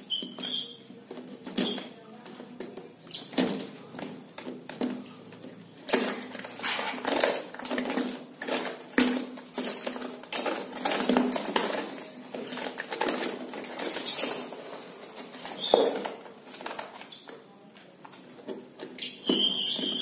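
A taped cardboard shipping box being opened and handled by hand: irregular rustling, tape tearing, cardboard scraping and light knocks, busiest in the middle. Short high chirps come in briefly near the start and again near the end.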